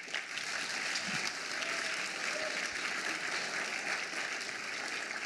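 Audience applauding in a hall: the applause breaks out suddenly and then carries on steadily.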